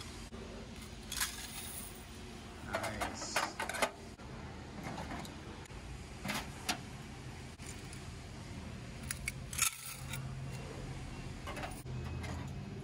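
Keys jangling and sharp metal clicks and clatter as wall-mounted coin-operated vending machines are unlocked and their doors opened, in several short clusters, over a low steady hum.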